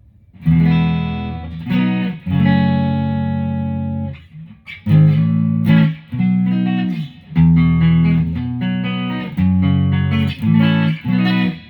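Electric guitar (an Electravox Jazzmaster) played on its neck Widerange humbucker alone: a run of strummed chords, each ringing for a second or two before being cut off, then the next.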